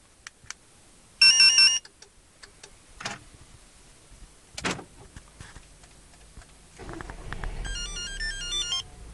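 A StarLine A94 car alarm key fob plays a short, loud electronic beeping melody about a second in, followed by a few clicks. About seven seconds in, the Volkswagen Passat CC's engine starts on remote start and runs at idle, while the fob plays a stepped electronic chime confirming the start.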